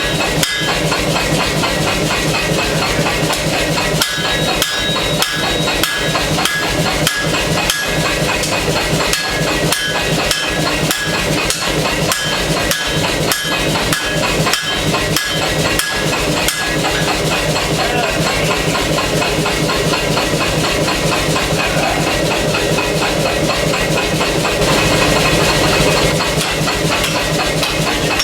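Pneumatic air hammer pounding hot steel in a rapid, even rhythm of blows over a steady machine drone. The blows run together into a denser, continuous pounding later on.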